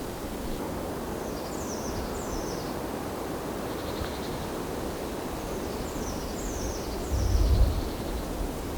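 Outdoor ambience: a steady rushing noise with a small bird singing short, high, descending phrases twice. A brief low rumble comes about seven seconds in.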